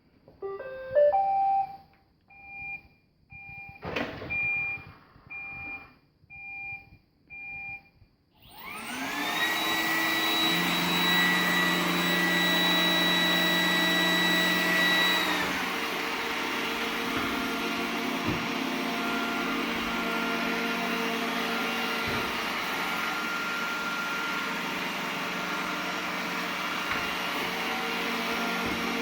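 iRobot Roomba 980 robot vacuum starting up: a short rising chime, a click and a string of short beeps, then its vacuum motor and brushes spin up with a rising whine and settle into steady running.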